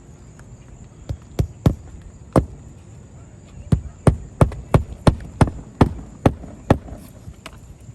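Hammer driving nails while a replacement roofing piece is installed: a few scattered blows, then a steady run of about three blows a second.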